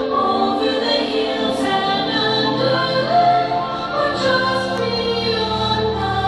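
Show soundtrack music with a choir singing sustained notes, played loud over outdoor loudspeakers.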